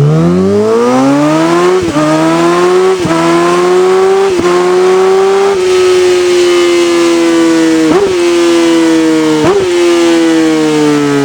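Sport motorcycle engine with an aftermarket exhaust, revving up quickly in the first two seconds and then held at high revs, with several brief sharp dips in pitch that cut in and recover almost at once.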